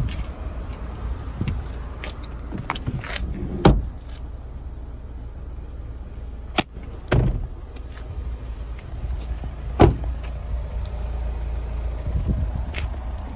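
Sharp clunks and knocks from a Fiat 500's door and seat being handled, four louder ones a few seconds apart, over a steady low rumble.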